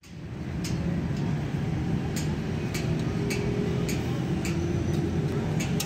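Ratchet wrench clicking in strokes about twice a second as it turns a bolt on a metal gearbox casing, over a steady low mechanical rumble.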